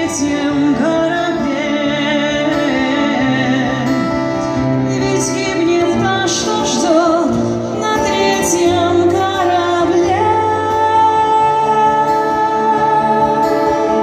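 A woman singing a song live, accompanied by acoustic guitar, over low held notes that change pitch every second or two.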